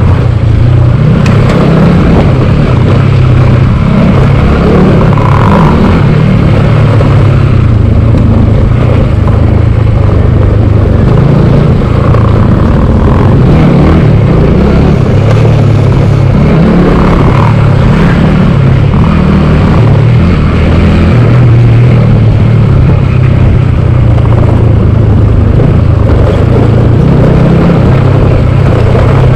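Motorcycle engine running steadily while riding along a rough gravel road, heard from the rider's own bike, with a loud rumbling low band that wavers a little throughout.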